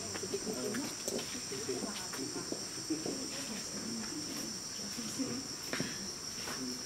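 Steady, high-pitched chorus of insects, with faint voices murmuring underneath and a few light knocks.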